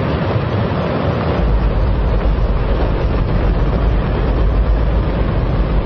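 Space Shuttle main engine, burning hydrogen and oxygen, firing on a test stand: an extremely loud, steady rush of noise with a deep rumble that grows heavier about a second and a half in.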